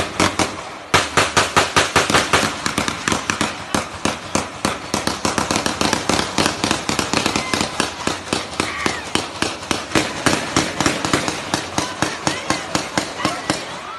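Sustained small-arms gunfire in a firefight: many shots overlapping, several a second, with no real pause. The shooting grows heavier about a second in.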